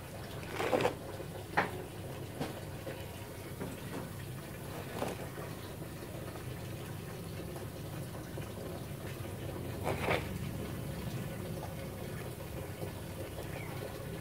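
A few brief rustles and scrapes of coarse coconut-husk potting medium and charcoal being pressed by hand into a clay orchid pot, the strongest about a second in and near ten seconds, over a steady low background noise.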